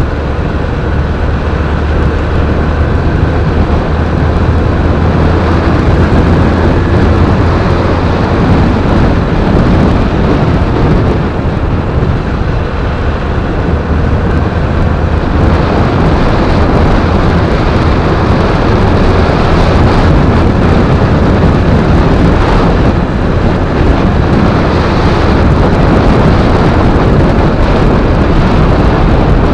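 Motorcycle on the move: engine running with heavy wind noise rumbling on the camera microphone, loud and fairly steady throughout.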